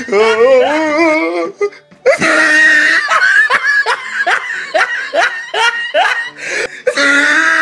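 A music track mixed with laughter, which breaks off briefly about two seconds in and returns as a run of short rising laughs, about three a second.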